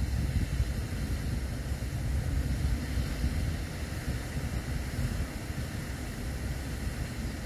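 Wind buffeting the microphone outdoors, a steady, uneven low rumble with no clear calls from the ducks.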